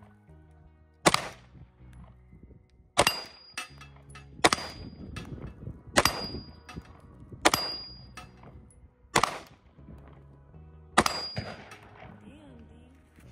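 Glock 19X 9mm pistol fired in seven slow, deliberate shots about every one and a half to two seconds. Most shots are followed by the brief high ping of the bullet striking a steel plate target.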